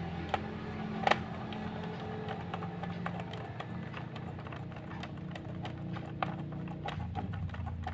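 Irregular small clicks and taps of a screwdriver and fingers on a laptop's plastic case as the bottom screws are put back in, with a sharper click about a second in. A steady low hum runs underneath.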